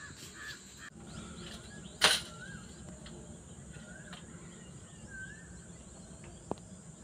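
Quiet forest ambience: a bird's short wavering chirps several times over a steady high insect drone. A single sharp snap about two seconds in is the loudest sound, with a smaller click near the end.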